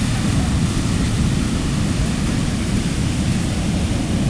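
Heavy storm surf breaking on an ocean beach, a steady, loud, low rush of waves with no pauses. The big swell is raised by a hurricane passing far offshore.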